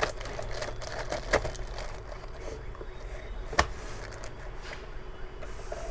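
Plastic bag crinkling and rustling as a bagged cable is pressed down into a cardboard box, with a few light clicks of handling. About three and a half seconds in, a single sharp knock as a small plastic-cased device is set down in the box.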